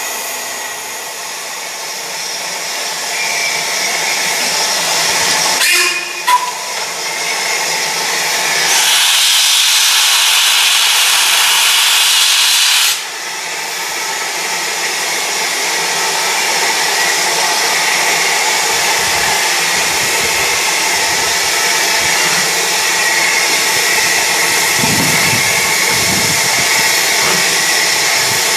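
Ivatt 2MT 2-6-0 steam locomotive starting away with its cylinder drain cocks open, hissing steam, with a louder burst of hiss from about nine to thirteen seconds in. A short sharp sound comes about six seconds in, and low, uneven chuffs come in during the second half.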